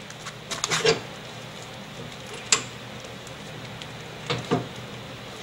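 Scattered light clicks and knocks as a MIG welder's gun cable plug is handled and pushed into the machine's front connector: a cluster of them about a second in, a sharp click midway, and two more near the end.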